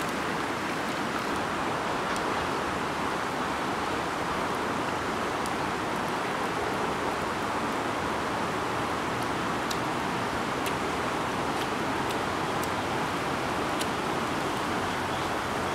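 River water rushing steadily over stones, with a few faint sharp ticks scattered through it.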